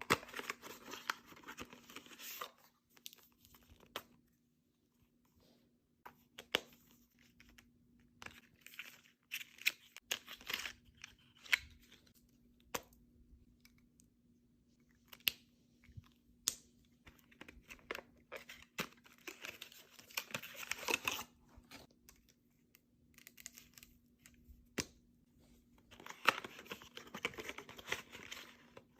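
Packaging from a makeup order being torn open and crinkled in four bursts, with sharp taps and clicks of items being handled between them.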